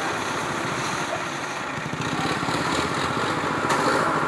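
An engine running steadily, growing louder with a stronger mid-pitched hum from about three and a half seconds in.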